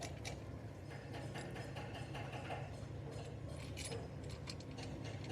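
A few light metallic clinks, as of metal tools or parts being handled, over a steady low hum.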